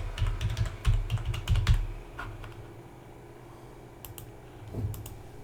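Typing on a computer keyboard: a quick run of keystrokes over the first two seconds, then a few scattered key clicks near the end.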